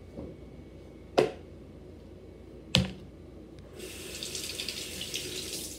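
A plastic Pantene Pro-V bottle is handled with two sharp clicks or knocks, then squeezed, and water trapped inside sputters and hisses out for about two seconds before stopping suddenly.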